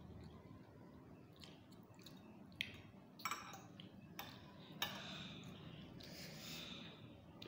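Quiet noodle eating: slurping and chewing, with forks clinking a few times against glass bowls.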